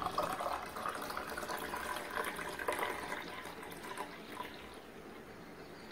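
Juice poured in a thin stream into a glass tumbler as the glass fills, the pouring sound growing fainter in the last second or so.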